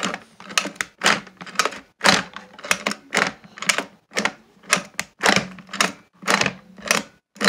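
Plastic toy play-dough stand mixer being worked by its crank handle: its plastic gears and beater clatter in an even rhythm of about two bursts a second.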